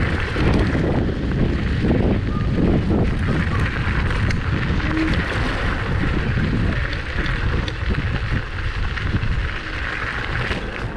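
Wind buffeting the microphone, with tyre rumble from a Kaabo Mantis electric scooter rolling along a gravel path. It gets somewhat quieter near the end as the scooter slows.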